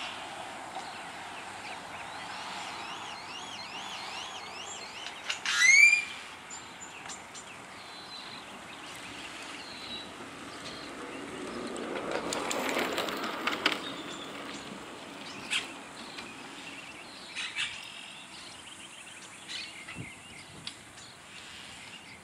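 Birds chirping outdoors: a quick run of thin repeated chirps in the first few seconds, a loud sharp call about six seconds in, and scattered short chirps later over a steady background hiss, with a brief rushing noise around the middle.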